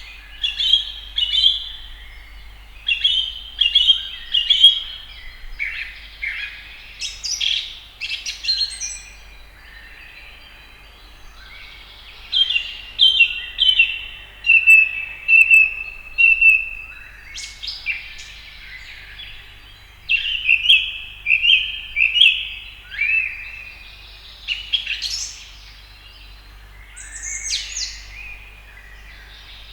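House sparrows chirping: bouts of quick, repeated short chirps with brief pauses between them, over a faint steady low hum.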